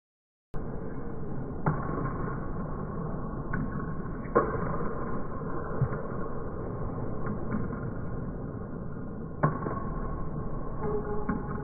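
Slowed-down sound of table tennis rallying: a dull, muffled rumble of hall noise, lowered in pitch, starting about half a second in, with a few deep, stretched knocks from the ball striking the bats and table.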